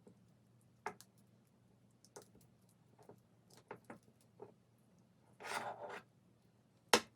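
Small robot parts and wiring being handled on a workbench: scattered light clicks and taps, a brief rubbing scrape about five and a half seconds in, and one sharp click near the end.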